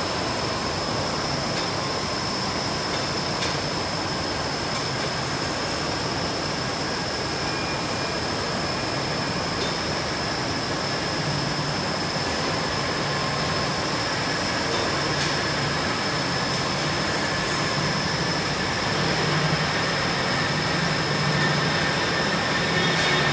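Chocolate bar conveyor line machinery running: a steady mechanical whir with a constant high-pitched whine over it and a few faint clicks, growing a little louder near the end.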